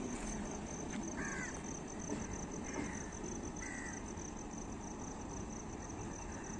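Crows cawing: a few short harsh caws, the clearest about a second in and two more by the fourth second. A steady high-pitched insect trill runs underneath.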